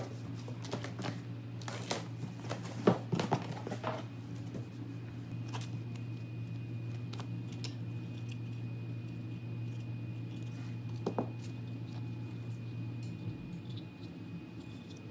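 Packing tape on a cardboard box being slit with a hand-held blade and torn open: a run of sharp scrapes and rips over the first few seconds. After that a steady low hum, with a few small clicks from handling the packed parts.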